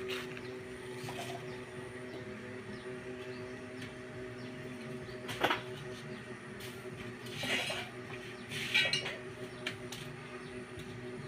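Metal hand tools and bike parts clinking during assembly work: a sharp clank about five seconds in, then two short rasping clatters near the end, over a steady low hum.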